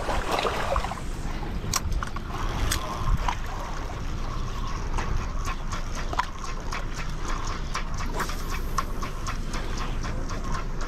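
Penn Slammer III spinning reel being cranked to retrieve a lure, a steady run of light ticks about three a second, over wind on the microphone.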